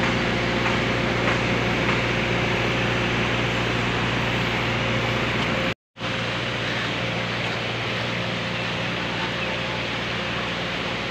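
Muddy floodwater rushing over rocks and debris: a loud, steady rushing noise, broken by a moment's silence just past halfway.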